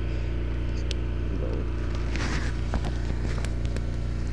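A steady low engine hum, with scattered sharp clicks and a brief rustle about two seconds in.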